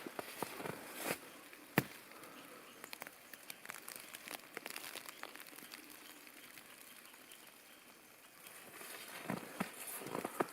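Footsteps crunching through fresh snow, stopping after about a second for a quiet stretch of faint crackling and ticking, then starting again near the end.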